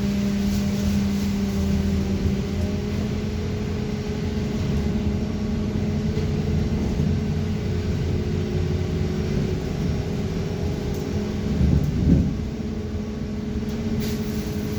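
Inside a moving BKM 321 trolleybus: the electric traction drive hums with steady tones over a low road rumble. A brief louder swell with a shifting tone comes about twelve seconds in.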